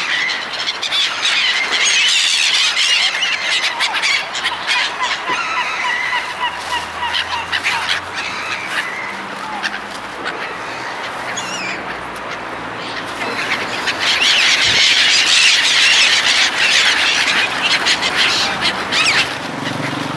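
A large flock of seagulls calling over one another. The calls thin out around the middle and build up again about two-thirds of the way through.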